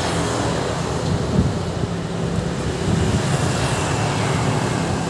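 Ashley ACT600 active speaker playing a loud, bass-heavy rumble with sustained low notes, during a sound check.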